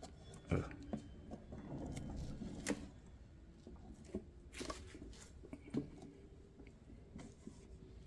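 A typewriter carrying case being opened and handled: a few scattered sharp clicks and knocks, with soft handling noise in between.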